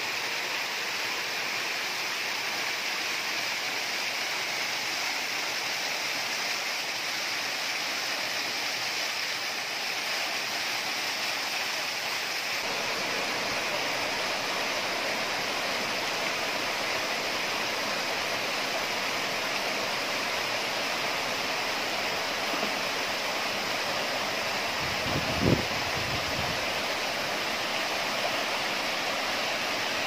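Water rushing and splashing down a small rocky waterfall and stream, a steady rush that turns fuller and deeper a little before halfway. A single short thump about three-quarters of the way through.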